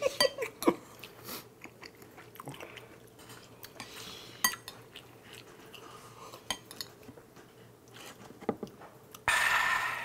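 Eating sounds: chopsticks clicking against ceramic bowls and dishes, with chewing and a drink of cola. A short, loud breathy sound comes near the end.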